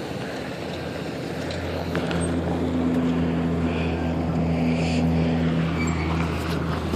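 A motor engine droning at a steady pitch, growing louder about two seconds in and easing off near the end.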